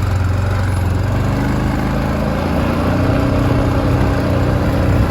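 Vehicle engine idling steadily close by, its pitch lifting slightly about halfway through.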